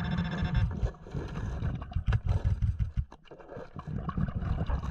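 Underwater handling noise: muffled low thumps and scraping clicks as a gloved hand digs through lake-bottom sand. A handheld pinpointer's steady buzzing alert tone stops under a second in.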